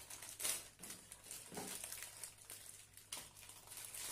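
Plastic candy wrappers crinkling and rustling in irregular bursts as packets are handled and emptied into a bowl.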